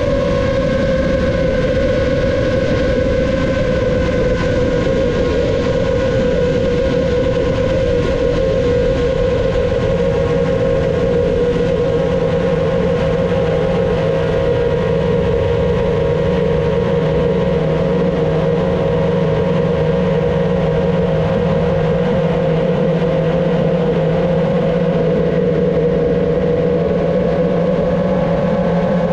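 Brushless motors and propellers of a GepRC MOZ7 7-inch long-range FPV quadcopter whining steadily in cruise flight, heard through the drone's onboard GoPro, with the pitch wavering only slightly.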